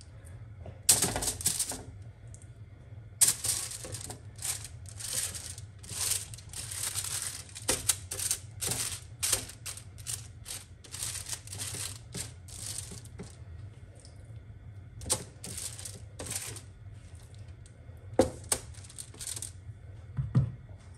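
Aluminium foil on a baking tray crinkling and rustling in irregular bursts as it is handled, over a low steady hum.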